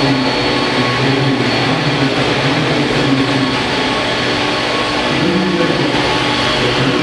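A 1:5 scale Vario Bell 430 radio-controlled helicopter flying, its rotors and drive making a steady drone with a low hum that wavers slightly as it manoeuvres.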